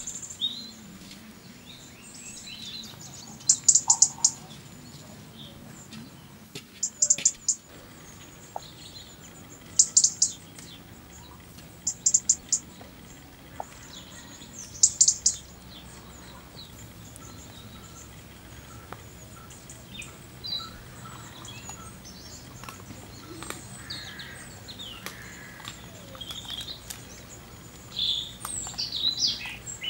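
Songbird calls: five short bursts of rapid, very high chirps, repeated every two to three seconds, then scattered fainter chirps and a louder cluster of calls near the end.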